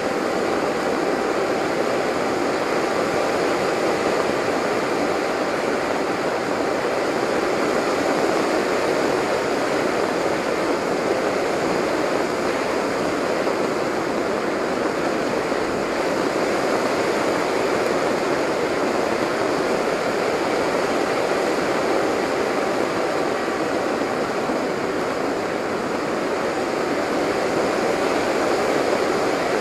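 Steady airflow rushing over the onboard camera of a Delta Speed XS RC delta-wing model in flight, with a faint motor whine beneath it that fades about halfway through and comes back near the end.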